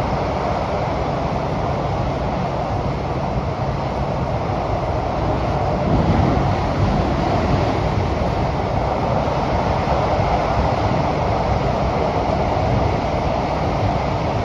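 Interior running noise of a Kawasaki–CRRC Sifang CT251 metro car: a steady roar of wheels on rail under way, a little louder from about six seconds in.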